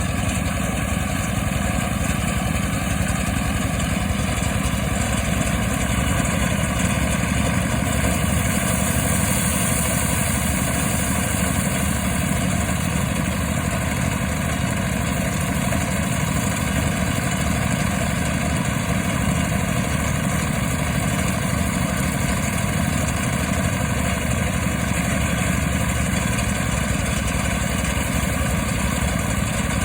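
Engine-driven mobile rice thresher running steadily, threshing paddy with a continuous, even machine din.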